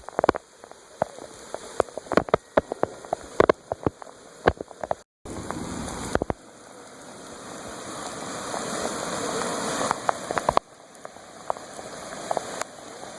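Heavy rain falling, with many sharp drop impacts striking close by through the first few seconds. After a brief break, a denser steady hiss of rain builds gradually louder, then drops back abruptly.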